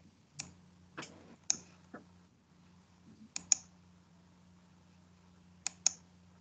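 Scattered sharp clicks of a computer keyboard, about eight in all with two close pairs among them, over a faint steady low hum.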